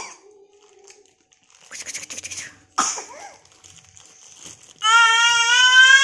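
Plastic wrapping rustling and crinkling, with a sharp knock about three seconds in. About five seconds in, a toddler starts crying loudly in one long, steady wail.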